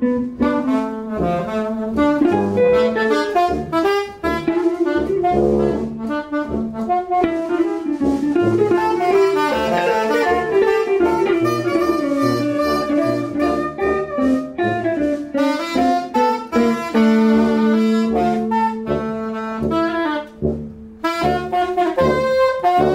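Tenor saxophone playing a lead melody in a live band, with tuba holding the bass line underneath and guitar and drums accompanying. It plays a run of quick notes, then settles into longer held notes near the end.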